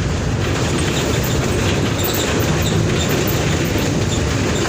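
Mercedes-Benz OF-1722M bus's diesel engine running, a steady low rumble with rattling over it.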